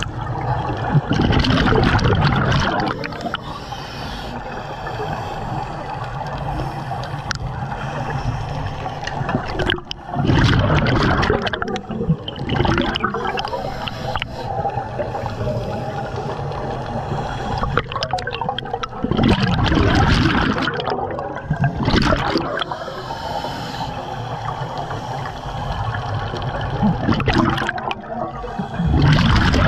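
Underwater sound of a scuba diver breathing through a regulator. Loud gurgling bursts of exhaled bubbles rush past the camera every eight to nine seconds, with a steady water hiss in between.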